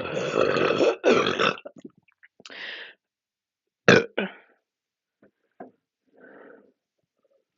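A long, loud, deep belch for about the first second and a half, deliberately let out after chugging a drink, followed by a shorter burp and then a sharp, loud burp about four seconds in. A few faint clicks and a soft short burp follow.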